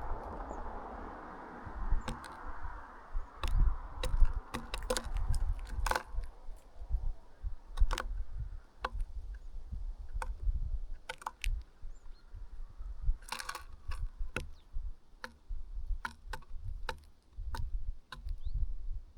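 Small birds pecking at food: irregular sharp taps and clicks, with a short rustling burst about thirteen seconds in. A low wind rumble on the microphone runs underneath, and a steady hiss fades out in the first few seconds.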